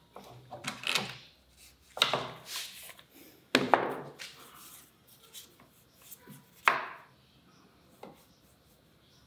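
Workbench handling noises: a few separate short knocks and rubs of tools against plywood, as a cordless drill is set down and a metal feeler gauge is worked free from a clamped wood block. The sharpest knock comes a little past the middle.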